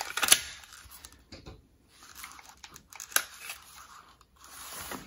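Hand-handling noise of a leather shoulder holster rig as a pistol and its polymer holster shell are pulled free. A few sharp clicks come near the start and another about three seconds in, with rustling and scraping of leather and straps in between.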